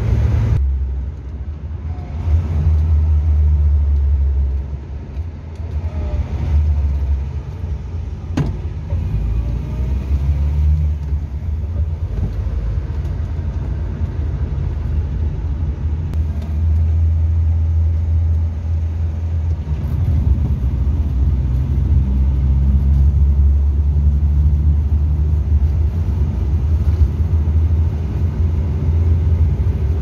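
Hillman Super Minx's four-cylinder engine running at road speed, heard from inside the cabin with the windows down: a steady low rumble mixed with tyre and wind noise, rising and easing a little as the car drives on.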